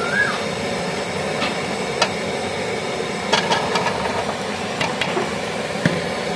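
Perforated metal spoon knocking and scraping a few times in an aluminium cooking pot as sliced taro root is tipped in over potatoes frying in masala, over a steady hiss.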